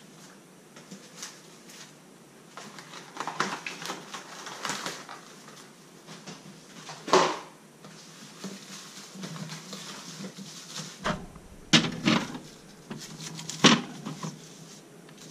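Cling film and a plastic bag rustling as a dish is wrapped, with a few sharp knocks. In the last few seconds a fridge hums, and a dish is knocked onto a fridge shelf.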